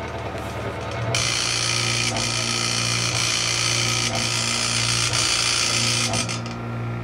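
A club scanning light's mirror stepper motor running noisily: a loud, high-pitched noise starts about a second in and stops near the end, over a steady low hum. The owner thinks the motor is not screwed in properly to its bracket.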